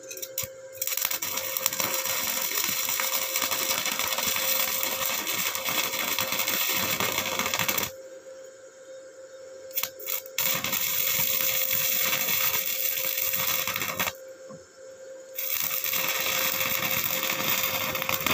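Stick-welding arc from an Ingco 130 A inverter welder burning a 2 mm electrode: a steady crackling sizzle in three runs of several seconds each, with a couple of brief strikes before the second run. The arc runs evenly, which the owner takes as a sign the nine-month-old machine still welds like new.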